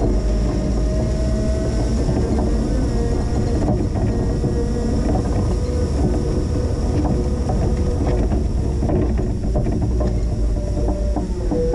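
Linde H20 forklift running steadily while plowing snow: a continuous engine rumble with a steady whine from its hydrostatic drive, which shifts in pitch near the end.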